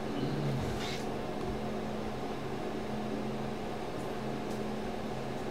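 Room tone: a steady low hum with a few fixed tones over faint hiss.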